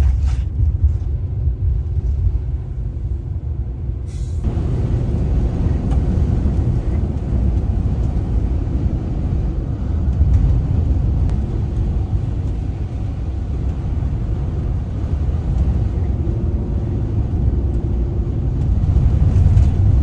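Road and wind noise inside a Ram ProMaster camper van's cab while driving on a snow-covered highway in strong wind: a loud, steady rumble. It grows fuller and hissier about four seconds in.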